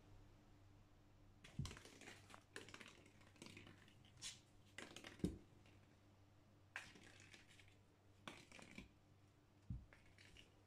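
A crumpled aluminium foil ball batted about by a kitten's paws on a wooden parquet floor: about ten irregular light taps and crinkly scrapes, the sharpest about five seconds in.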